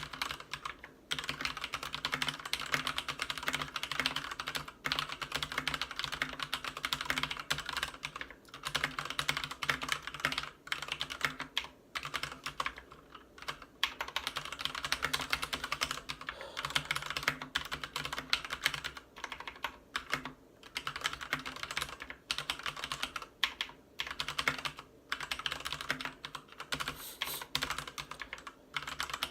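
Continuous fast typing on a Ducky Zero 3087 mechanical keyboard with Cherry MX Red linear switches and PBT keycaps: a dense run of key clacks with a few short pauses between bursts. A faint steady low hum lies under it.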